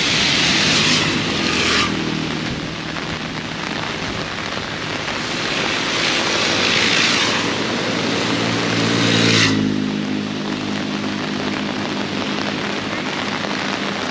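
Heavy rain hissing steadily, with a motor vehicle's engine running close by: its pitch climbs for several seconds, then drops about nine and a half seconds in, when the louder rain hiss also falls away.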